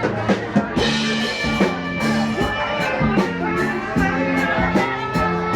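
Music with a steady drum beat under a stepping bass line.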